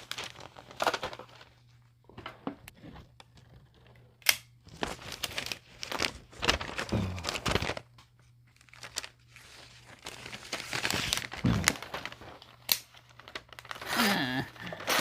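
Paper rustling and crinkling in irregular bursts as a small OTF knife's blade is pushed into it, with a few sharp clicks.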